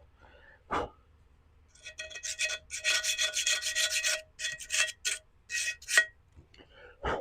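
A scraping tool rasping dried paint off a ceramic bonsai pot in a quick run of short strokes, with a squeaky ringing tone in the scrape. A single knock comes about a second in, and another just before the end.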